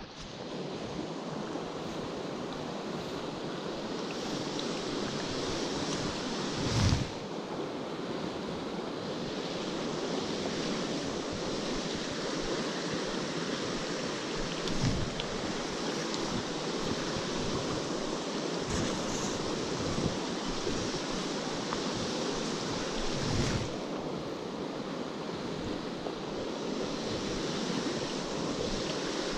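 Steady rush of a fast, shallow stream running over rocks. A few brief low bumps of wind on the microphone break through, the loudest about seven seconds in.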